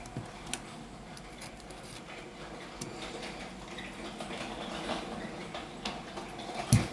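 Faint small clicks and handling noise as a smartphone's SIM tray is ejected and slid out of the phone's frame, with one louder soft knock near the end.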